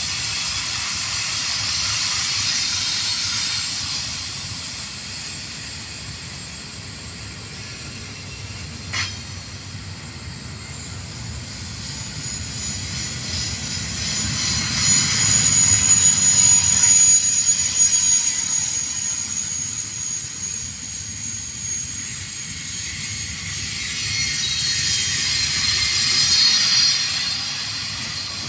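Double-stack container cars rolling past on steel wheels: a steady rumble and hiss of wheels on rail, with a thin high-pitched squeal over it. It grows louder about halfway through, and there is a single knock about a third of the way in.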